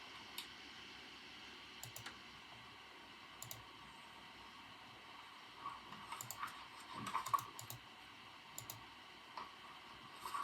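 Computer keyboard typing in scattered keystrokes: single taps now and then, and a quick run of them a little past the middle, over a steady soft hiss.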